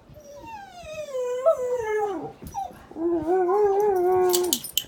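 A pet dog howling and whining for its owner's attention. First comes a long whine that falls steadily in pitch. After a short pause comes a second, held howl that wavers, and a few light clicks near the end.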